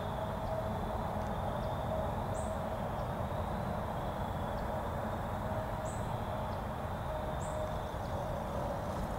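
Steady woodland background noise with a faint steady hum, and three short, high, falling chirps from a bird.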